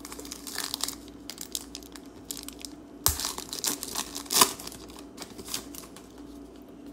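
Foil wrapper of a baseball card pack being torn open and crinkled by hand, with the loudest tears about three and four and a half seconds in.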